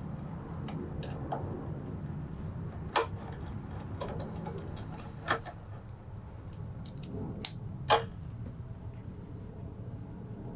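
Sharp metal clicks and taps of small hand tools and bolts being worked in, a handful of them with the loudest about three, five and eight seconds in, over a low steady hum.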